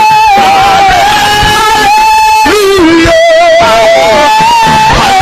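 Music led by an electric guitar playing a slow melody of long held notes with vibrato.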